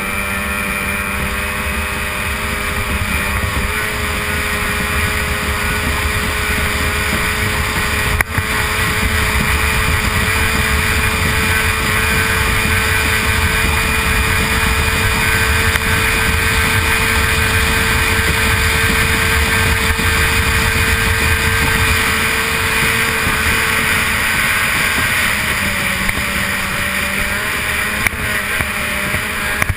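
A-Stock hydroplane's racing outboard motor running steadily at race speed. Its pitch dips slightly about 25 seconds in, with a brief drop-out near 8 seconds.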